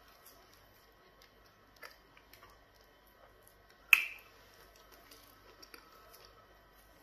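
Quiet hand-eating sounds of pounded yam fufu with soup: faint soft clicks as the dough is pinched and dipped, and one sharp smack about four seconds in as a ball of fufu goes into the mouth.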